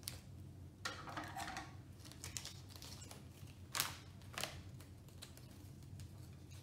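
Crinkling and rustling of a foil LEGO minifigure blind bag and its small paper instruction leaflet being handled and unfolded, with two sharp crackles about four seconds in as the bag is put down on the countertop.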